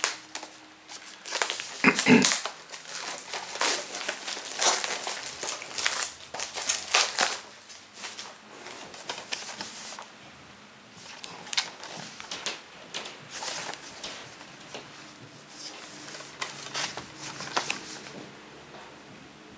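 Plastic shrink-wrap crinkling and crackling in the hands as it is peeled off a CD package and crumpled, loudest about two seconds in. Later come lighter rustles as the cardboard digipak is handled and opened.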